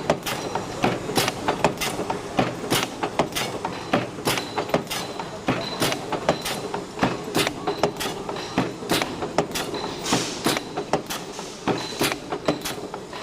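Automatic chain-making machine running, a steady clatter of sharp metal knocks several times a second as it feeds and forms the chain links.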